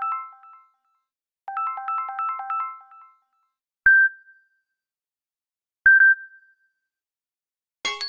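iPhone ringtones playing one after another: a quick repeating pattern of bell-like synthesized notes heard twice, then two single chime tones two seconds apart, and a new tinkling tone beginning near the end.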